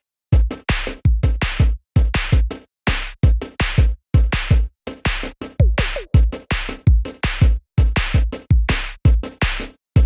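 Electronic background music with a punchy drum-machine beat, deep kick drums and short sliding synth notes, starting about a third of a second in after a brief silence.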